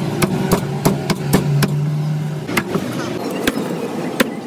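A cleaver chopping roast pork on a chopping block: sharp single strikes, about three a second for the first two seconds, then sparser, over a steady background of voices and street noise.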